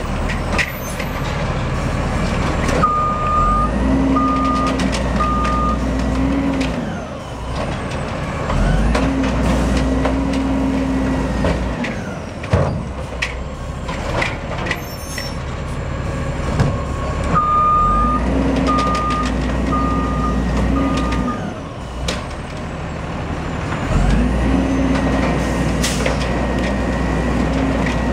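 Automated side-loader garbage truck working a row of recycling carts: the engine speeds up again and again with a steady hum as the arm runs. Two groups of three or four short beeps from its warning alarm, with knocks and clunks from the arm and carts in between.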